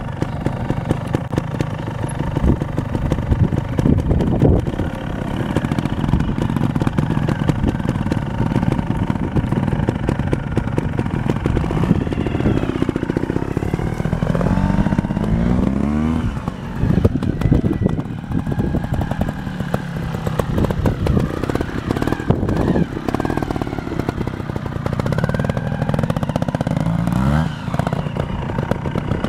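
Trials motorcycle engines running close by, revving up and falling back again and again as the bikes work over rough ground, with the clearest rises in revs about halfway through and again near the end.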